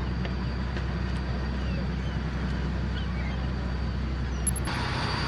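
Steady low drone of a fishing boat's engine running under way, with a few faint, short gull calls.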